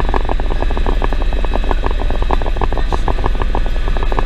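Helicopter in flight heard from inside the cabin: the fast, even chop of the main rotor over a steady low drone, with a thin steady whine above.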